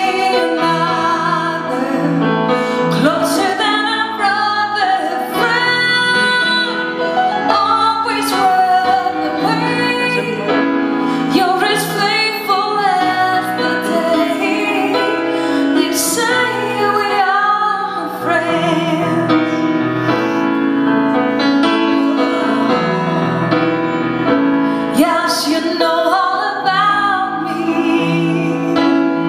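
A woman singing a gospel song solo into a microphone, live, over band accompaniment.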